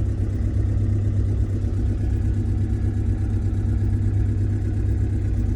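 JCB JS220 excavator's four-cylinder JCB Dieselmax diesel engine idling steadily, running again now that a new injector has been fitted.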